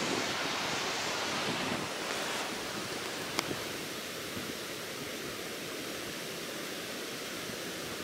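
Steady rushing roar of Laxapana Falls' water pouring down onto the rocks and pool below, with a single short click about three and a half seconds in.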